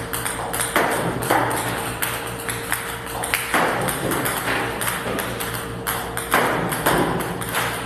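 Rapid sharp clicks of table-tennis balls from a ball robot striking the table and net, with music playing over them.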